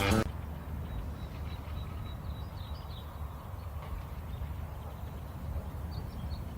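Outdoor background noise: a steady low rumble with a few faint, short high chirps, once between two and three seconds in and again about six seconds in.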